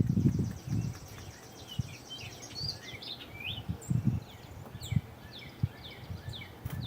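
A bird calling over and over as it mobs a dog: a buzzy high trill early on, a few warbled notes, then short downward-sliding calls repeated about once or twice a second. A few low thuds sound beneath the calls.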